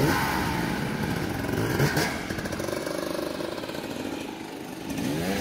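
Dirt bike engines revving and idling on and off, rising and falling in pitch, with a short sharp knock about two seconds in.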